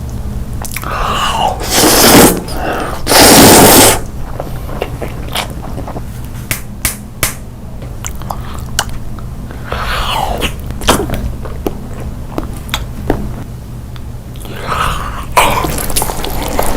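A person chewing and biting food close to the microphone, with many small wet mouth clicks. There are two loud noisy bursts, about two seconds and three and a half seconds in, and a steady low hum underneath.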